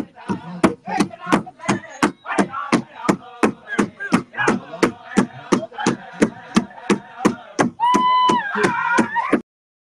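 Powwow drum group: several drummers striking one large hide-covered drum with padded beaters in a steady beat, about two to three strikes a second, with men's high-pitched singing over it. A long held sung note comes near the end, then the sound cuts off abruptly.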